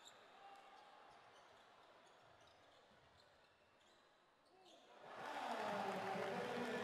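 Basketball game court sound in an indoor arena: faint court noise with the ball bouncing, then about five seconds in a much louder stretch of arena noise and voices starts up and holds.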